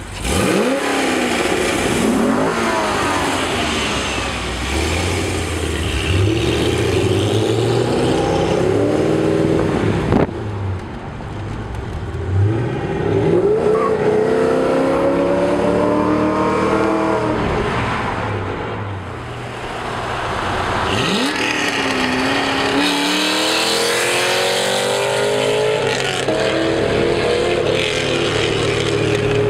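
2007 Corvette Z06's LS7 V8 through long-tube headers, an X-pipe and a Corsa Sport cat-back exhaust, accelerating hard through the gears. The pitch climbs, drops at each upshift, and climbs again several times, then settles into a steady drone near the end.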